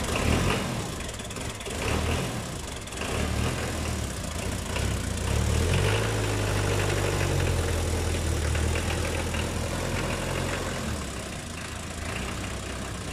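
Toyota Land Cruiser BJ40's four-cylinder diesel engine running with the hood open. It is blipped a few times in the first few seconds, then held at raised revs for several seconds, and eases back toward idle near the end.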